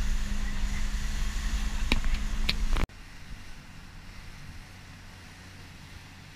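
Motorboat engine running with a steady hum and wind rumbling on the microphone, with two sharp clicks. It cuts off abruptly about three seconds in, leaving a much quieter wash of water and wind.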